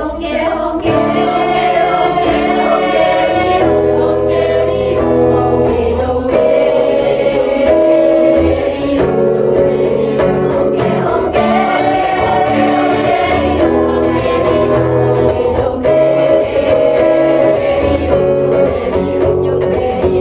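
Choir singing in several parts, holding chords that shift every second or two.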